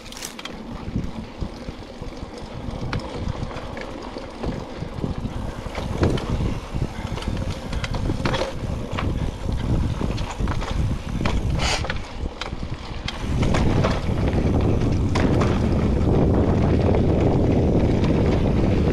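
Mountain bike ride on dirt singletrack: tyres rolling over the trail, with scattered clicks and rattles from the bike, and wind buffeting the microphone. About two-thirds of the way through, the wind noise turns louder and steadier.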